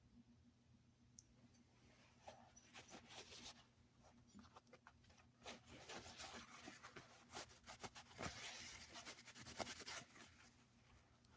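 Faint scratching and rubbing with light clicks, heaviest through the second half, as the cast-iron spokeshave body is handled and scrubbed clean after its rust-remover soak. A steady low hum lies underneath.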